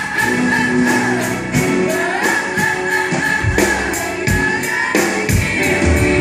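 Live music: a group of voices singing long held notes over a steady percussion beat.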